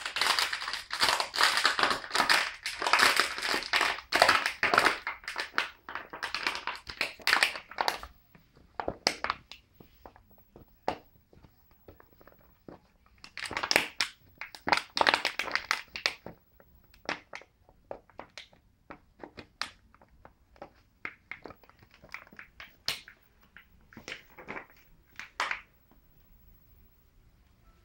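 A Labrador mix chewing and crushing a plastic water bottle toy, the plastic crinkling and crackling. The crackling is dense for about the first eight seconds, then comes in shorter bursts and scattered single cracks, and it stops shortly before the end.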